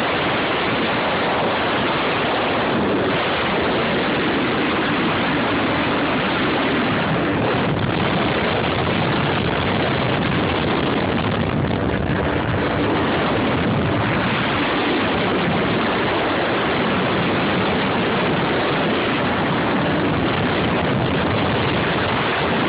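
Jet ski under way on a river: a loud, steady rush of engine, water spray and wind noise on the phone's microphone.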